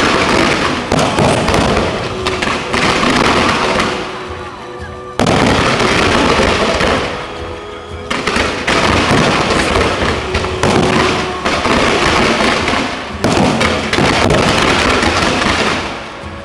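Fireworks display: ground-fired comets and aerial shells going off in a dense, rapid crackle of bangs. It comes in four waves, each starting suddenly and fading over a few seconds.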